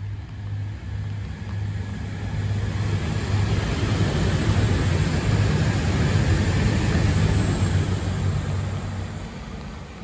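A passenger train passing on the line, growing louder to a peak about halfway through and fading away by the end, with a steady low hum under the noise of the cars. Steady rain hisses beneath it.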